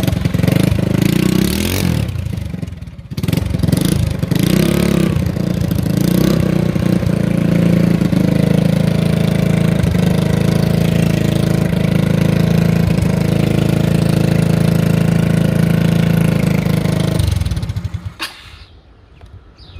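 Mini bike's engine running super loud while being ridden, easing off briefly about three seconds in and changing speed, then holding a steady cruise before stopping abruptly a few seconds before the end.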